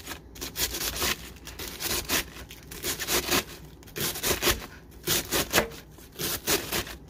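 Kitchen knife slicing through a head of iceberg lettuce, a quick irregular run of crisp crunching cuts.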